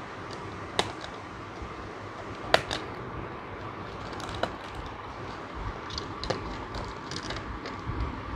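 Scissors snipping the plastic ties that hold a plastic toy Ferris wheel in its packaging, with the plastic parts clacking: a handful of sharp clicks, the loudest about two and a half seconds in and more of them near the end, over a steady background hum.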